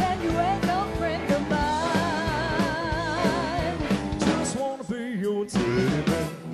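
Live rock-and-roll band with drums and electric guitars, and a singer holding one long note with vibrato. In the second half come several sharp drum hits, with a brief quieter gap between them.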